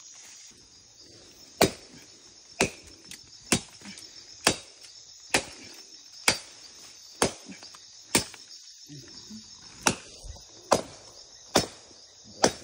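Machete chopping into a fallen tree trunk: about a dozen sharp blows, roughly one a second, over steady insect shrilling.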